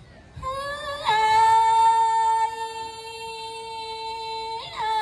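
A woman singing lượn cọi, a Tày folk song, into a microphone. She holds a long, steady note with a short glide up into it, then briefly breaks and slides into another held note near the end.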